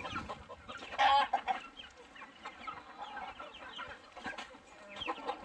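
A flock of chickens, Cheonggye hens among them, clucking in short scattered calls, with a louder burst of calls about a second in.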